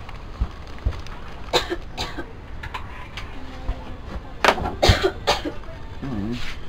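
A person coughing: a couple of short coughs about one and a half seconds in, then three quick coughs in a row about four and a half seconds in.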